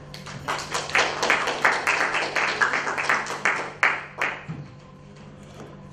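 A small audience clapping, a few seconds of applause that dies away about four and a half seconds in.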